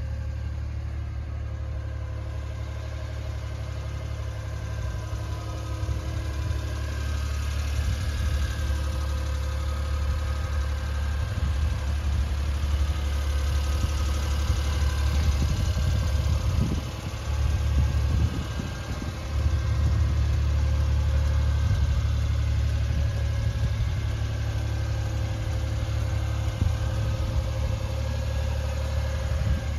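A Suzuki Carry's small three-cylinder engine idling steadily, with a deep rumble that breaks up briefly about halfway through.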